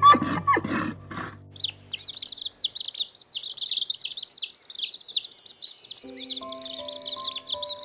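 A large crowd of chicken chicks peeping, many high, short, falling peeps overlapping in a continuous chatter that starts about a second and a half in. Music is playing at the very start and cuts off just before the peeping, and soft held music notes come back in about six seconds in.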